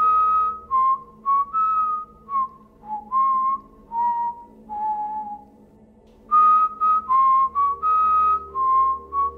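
A person whistling a slow tune, one clear note after another, dipping lower in the middle and pausing briefly before picking up again, over a faint steady low drone.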